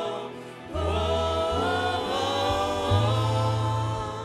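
Worship singers performing a Swahili gospel praise song with accompaniment. Low bass notes come in about a second in.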